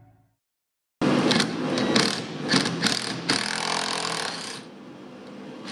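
Ridgid 18V cordless impact driver hammering in several short bursts as it backs fasteners out of an ATV's plastic footwell panel, starting about a second in, then a quieter hum after the last burst.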